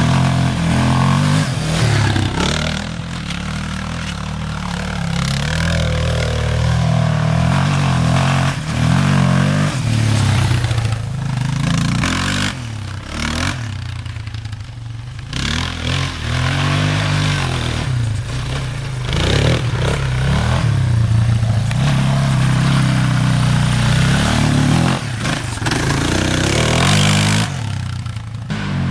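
1990 Yamaha Warrior 350 ATV's single-cylinder four-stroke engine running as it is ridden, revving up and falling back again and again under changing throttle. It grows quieter for a few seconds about halfway through.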